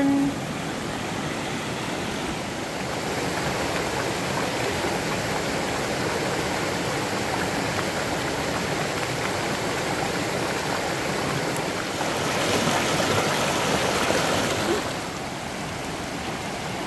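A mountain valley stream flowing with a steady rush of water, a little louder for a few seconds near the end.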